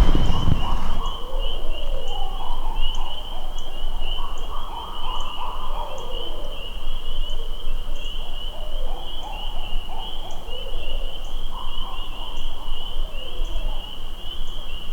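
Owls hooting, calls coming again and again over a steady high-pitched pulsing chorus, with a brief low rumble at the very start.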